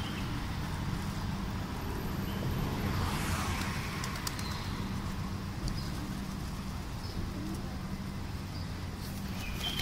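Flock of feral rock pigeons feeding: wings fluttering as birds shift and take off, with some cooing, over a steady low hum of road traffic.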